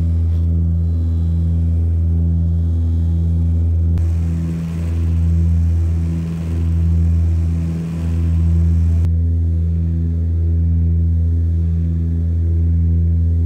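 Cabin drone of the Antonov An-24RV's twin turboprops in flight, a deep steady propeller hum with higher overtones. In the middle it swells and fades about every second and a half.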